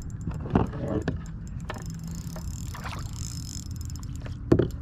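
Water and handling sounds around a plastic fishing kayak, over a steady low rumble of wind on the microphone. There are scattered small clicks and two sharp knocks on the kayak, one about half a second in and a louder one near the end.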